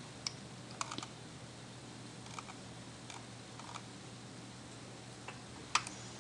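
About eight faint, scattered clicks of computer keys and controls as a web page is scrolled, the sharpest near the end, over a low steady hum.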